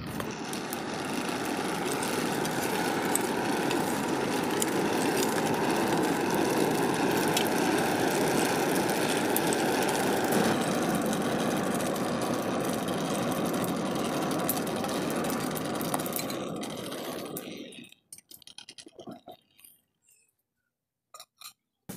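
Forge blower forcing air through a blacksmith's charcoal fire, a steady rushing roar that cuts off suddenly about 18 seconds in, with a few faint clicks after.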